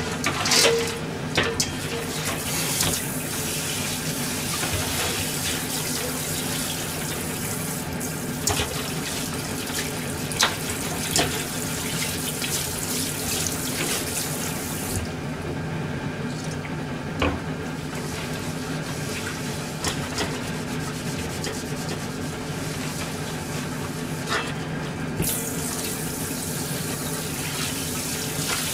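Kitchen tap running into a stainless steel sink while a black frying pan is scrubbed under the stream, with a few short knocks of the pan against the sink. The splash goes duller for about ten seconds midway.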